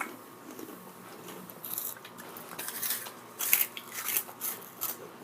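Someone chewing Flamin' Hot Crunchy Cheetos: a run of crisp crunches that starts about a second and a half in and goes on in quick irregular bites.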